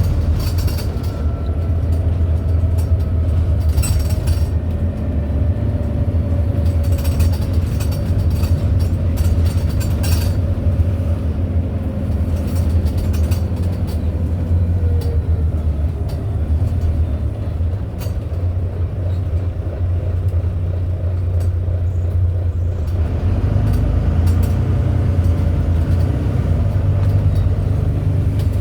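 Volvo B9TL bus's six-cylinder diesel and drivetrain running under way, a steady low rumble with whining tones that slide in pitch as the bus speeds up and slows. Short high squeaks come and go over it, a weird squeaking noise from the bus.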